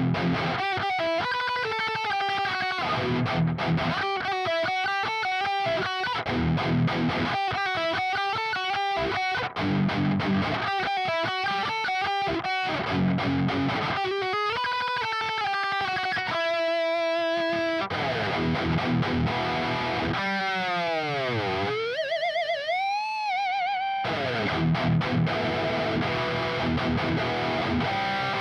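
RA600 electric guitar played through a distorted amp: fast palm-muted riffs in short bursts. Near the middle there is a held note, then the pitch bends down and back up with a wobbling vibrato, before the riffing resumes.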